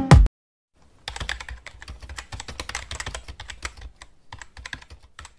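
Rapid computer-keyboard typing sound effect, a steady patter of key clicks for about four seconds, going with on-screen text being typed out letter by letter. Just before it, a dance-music track cuts off abruptly.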